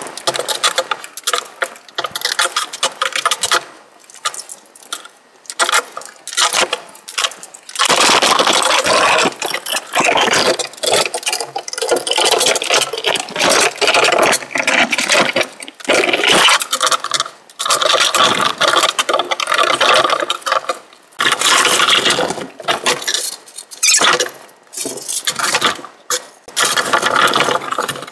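Metal enclosure-frame tubes clinking and scraping against each other and the table as they are handled and pushed into plastic corner connectors: a dense, uneven run of clatter with many sharp clicks.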